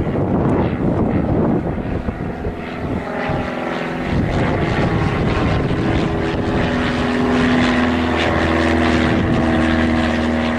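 A 1946 Piper J-3 Cub's engine and propeller running, at first under rough, gusty noise, then settling into a steady, even drone from about a third of the way in.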